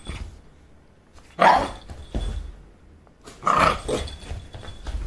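Small puppy barking twice in short bursts, about a second and a half in and again about two seconds later, with low bumps from its movement between them.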